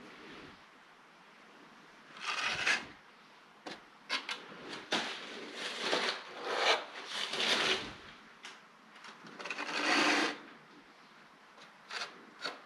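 Metal drywall knife scraping joint compound in a mud pan and across the wall: a string of irregular short scrapes, with a few light clicks near the end.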